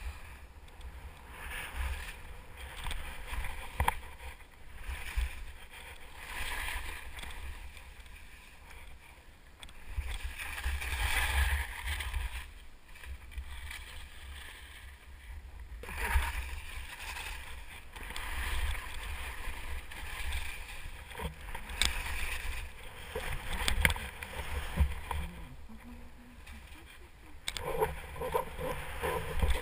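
Telemark skis swishing through fresh powder in swells that rise and fall every few seconds with the turns. Wind rumbles steadily on the GoPro's microphone, and there are a few sharp knocks.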